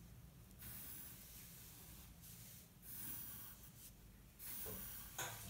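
Faint scratching of a pencil lead on paper in several separate strokes as straight lines are drawn.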